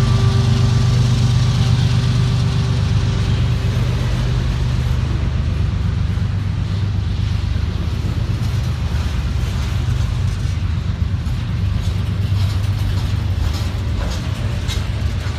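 Diesel locomotive of a freight train running close by with a steady low engine rumble. A higher steady tone fades out in the first few seconds, and sharp clicks of wheels over the rails come in near the end.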